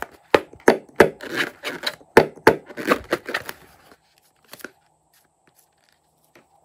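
Hands squeezing and rubbing a filled rubber balloon, the rubber creaking and crackling in a quick run of short strokes that stops about four seconds in, leaving only a few faint clicks.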